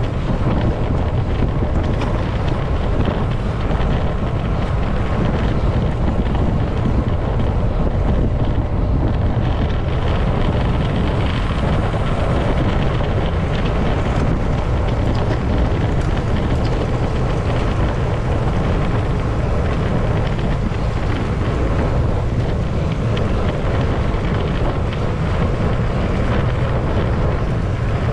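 Wind buffeting a cyclist's camera microphone while riding: a loud, steady, deep rumble that stays even throughout.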